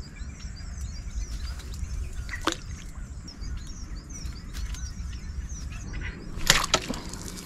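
Small birds chirping over and over, many short high chirps, above a low rumble, with a brief knock about two and a half seconds in and a louder pair of knocks near the end.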